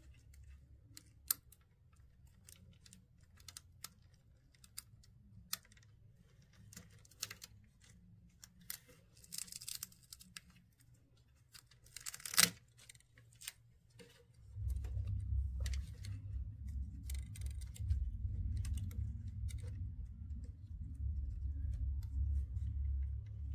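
Small plastic clicks and rustles of fingers working a ribbon-cable connector and its plastic tab on the P1P's AP board, with one sharper click about halfway. A steady low rumble comes in about two-thirds of the way through.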